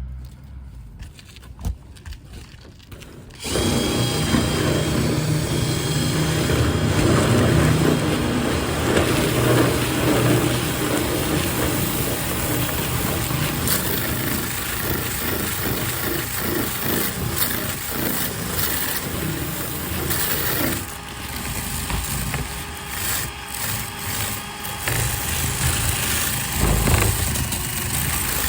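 Power drill spinning a rotary dryer-vent cleaning brush inside sheet-metal dryer ductwork, starting about three and a half seconds in and running steadily, easing off a little about twenty-one seconds in.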